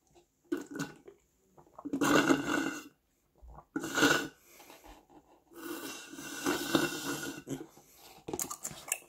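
Slurping through a straw from a nearly empty glass jar: four sucks of mixed liquid and air, the last about two seconds long, followed by a few light knocks near the end.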